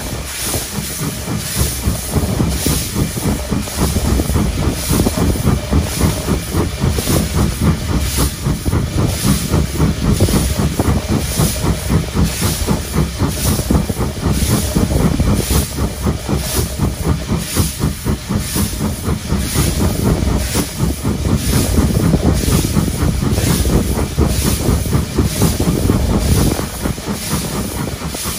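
LSWR T3 class 4-4-0 steam locomotive No. 563 running under steam, heard from its footplate: a steady, even rhythm of exhaust chuffs over the rumble of the wheels on the rails.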